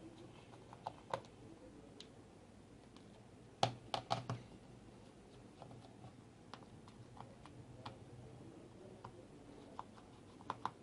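Small screwdriver clicking and tapping on the Samsung Galaxy S7 Edge's tiny screws as they are undone: scattered light clicks, with a cluster of louder taps about four seconds in.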